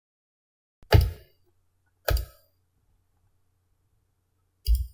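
Three short, dull thumps: one about a second in, one a second later and one near the end, with a faint low hum beneath after the first.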